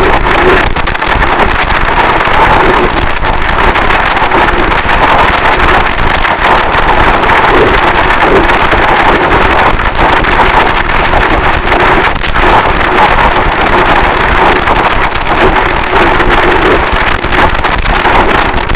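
Harsh noise wall: a loud, dense, unchanging mass of distorted static with no rhythm or separate hits.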